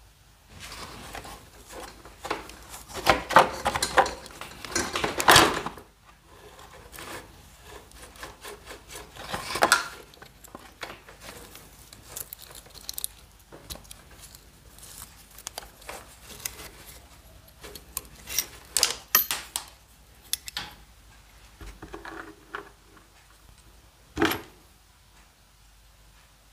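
Hand-tool and parts-handling noise on a scooter's fuel system: pliers on a spring hose clamp, rubber fuel hose and metal carburetor parts scraping, rubbing and clicking. A dense run of scraping comes a few seconds in, then scattered clicks and rubs, with one short sharp sound near the end.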